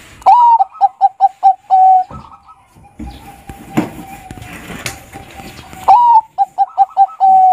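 Zebra dove (perkutut) of the Bangkok type singing its song twice: each phrase opens with a rising-then-falling note, runs into about six short quick coos and ends on a long held note. The second phrase starts about six seconds in.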